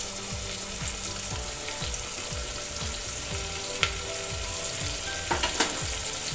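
Sliced onion sizzling as it goes into hot oil and ghee in a pressure cooker. A few sharp clicks come through about four seconds in and again near five and a half seconds.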